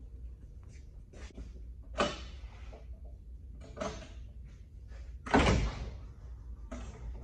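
Clanks and knocks from work in a truck shop: a sharp one about two seconds in and a heavier, louder one about five seconds in, with lighter taps between, over a low steady hum.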